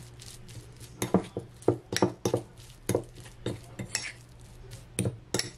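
Metal fork stirring flour into mashed beans in a cereal bowl, with irregular clicks and scrapes of the fork against the bowl.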